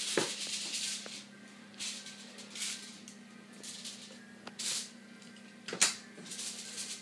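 Aluminium foil and plastic wrapping crinkling in short irregular bursts as they are handled, the loudest burst near the end, over a steady low hum.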